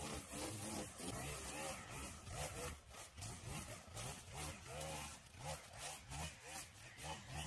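Gas-powered string trimmer cutting tall grass, its engine pitch rising and falling over and over with a pulsing loudness about twice a second.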